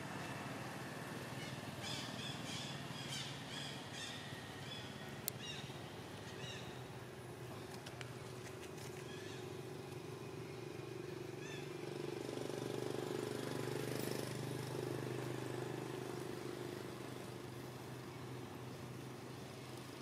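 Steady low hum of a motor vehicle's engine, growing louder about twelve seconds in and fading again a few seconds later.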